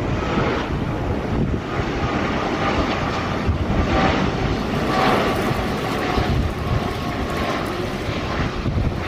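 Cathay Pacific Airbus A330-300 on final approach with gear down, its Rolls-Royce Trent 700 turbofans running at approach power. A steady, dense engine rumble carries a faint whine above it.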